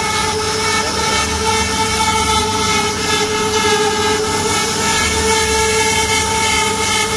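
CNC router spindle cutting wood: a steady whine with several overtones over a rushing cutting noise as the bit carves a relief pattern into the panel.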